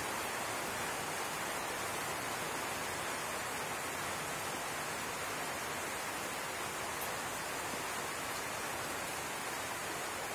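A steady, even hiss with nothing else standing out: the recording's background noise, unchanged throughout.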